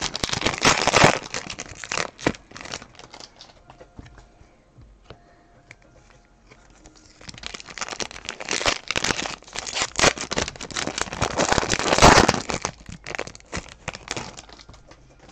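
Trading card pack wrappers being torn open and crinkled by hand, in two bouts of dense crinkling rustle with a quieter stretch between them; the loudest rustling comes about three-quarters of the way through.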